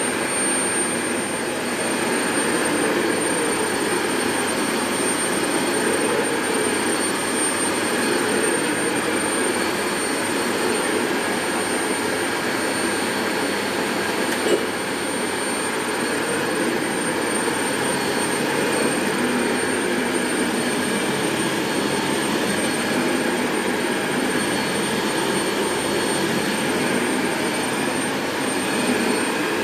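Dyson Light Ball Multi Floor upright vacuum cleaner running steadily, a continuous rushing noise with a thin high whine on top. There is one brief knock about halfway through.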